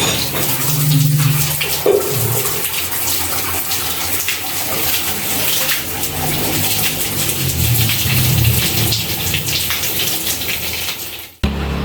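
Water running hard from a tap or pipe, a steady gushing splash that cuts off suddenly near the end.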